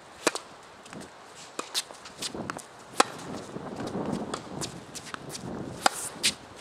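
Tennis ball struck by rackets in a rally: a serve hit about a quarter second in, then two more sharp hits about three seconds apart, with fainter knocks of the ball and the far player's shots between.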